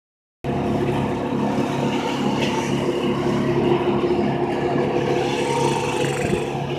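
An engine running steadily, starting abruptly about half a second in, with a faint tone that rises and falls near the end.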